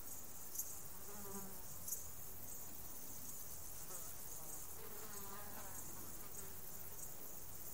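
Steady high-pitched chorus of meadow insects, with a few sharper chirps early on. A flying insect buzzes past twice, its pitch bending as it goes by: about a second in, and again from about four to six seconds in.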